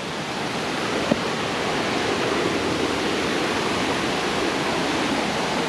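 Steady rush of creek water tumbling over rocks in a small waterfall, growing a little louder over the first two seconds.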